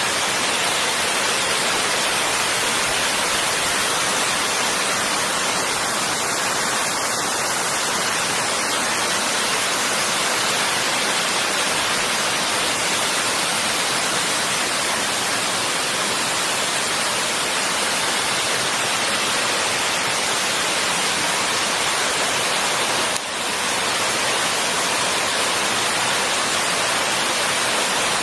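Small rocky stream cascading over boulders and little falls, a loud, steady rush of white water.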